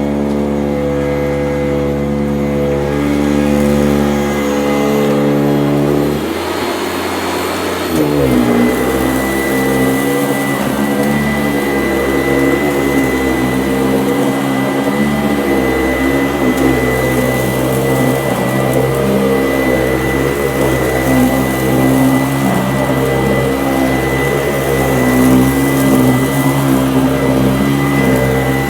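Sanitaire SC899E upright vacuum cleaner running, its motor holding a steady hum for the first few seconds. Around six to eight seconds in the sound shifts, and after that the motor pitch wavers up and down under a steady high whine as the vacuum is worked across the floor.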